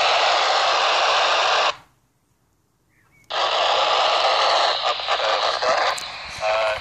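Baofeng handheld FM radio receiving the ISS amateur-radio downlink on 145.800 MHz as a weak, fading signal: a loud steady hiss that cuts out to near silence for about a second and a half, then comes back broken by crackles, with faint fragments of a voice near the end.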